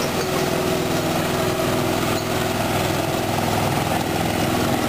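Small riding lawn tractor engine running steadily as it tows a train of barrel cars past.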